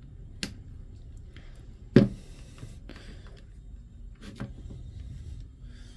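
Handling noise from working on an opened electric screwdriver's cord and plastic housing: a few sharp clicks and knocks, the loudest about two seconds in, over a low steady background.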